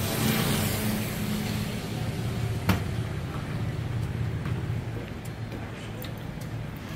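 Street traffic on a wet road: a scooter engine passing with a hiss of tyres on the wet surface that fades after a second or so, over a steady low engine hum, with one sharp click about a third of the way in.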